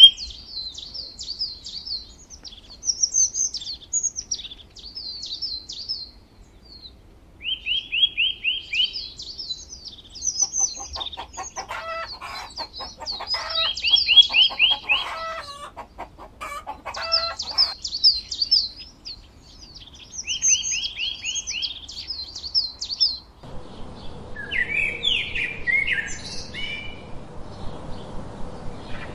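Birds chirping throughout, with quick trills of rapid, repeated notes every few seconds. About three quarters of the way through, a steady hiss comes in under a different set of short chirps.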